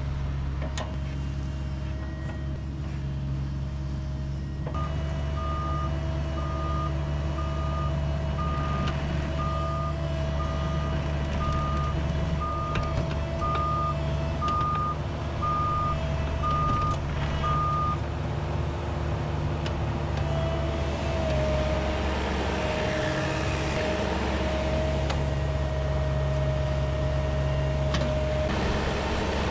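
Heavy machine's diesel engine running steadily while a back-up alarm beeps at an even pace, about one beep a second, from about five seconds in until about eighteen seconds in: the machine is reversing.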